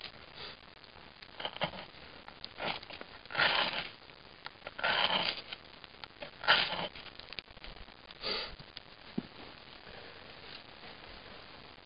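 Pocketknife blade shaving curls off a stick of wood to make tinder, about six separate scraping strokes, each under a second and unevenly spaced.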